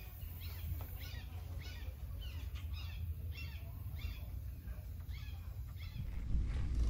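A bird calling over and over, short chirping notes about two a second, over a low steady rumble. The calls stop near the end as a louder rumble comes in.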